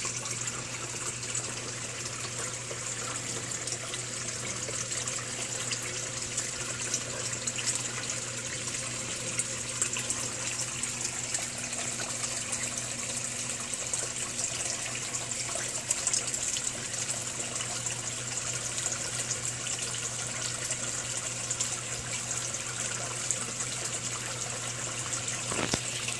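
Pond bubbler fountain running steadily: water bubbling up through the fountain head and splashing back onto the pond surface, with a low steady hum underneath.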